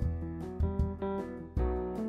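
Instrumental background music: sustained keyboard chords over a repeating bass line, with a steady beat.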